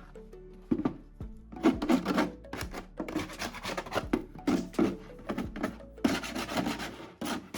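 Wood being worked with a hand rasp or file in quick, uneven scraping strokes, starting about a second in, with background music.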